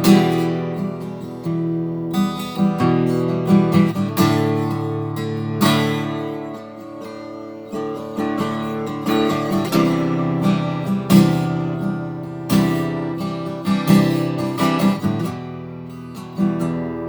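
Acoustic guitar playing a song's intro: chords strummed about every two seconds, with notes picked in between. No singing.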